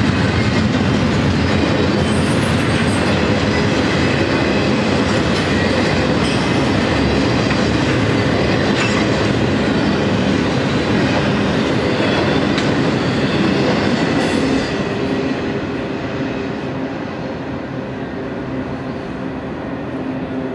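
Double-stack container train's well cars rolling past, a steady rumble and clatter of wheels on rail. About two-thirds of the way through it drops off and fades as the last cars go by and move away.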